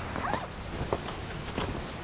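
Footsteps crunching and squeaking in snow, a few short strokes over a steady rush of wind on the microphone.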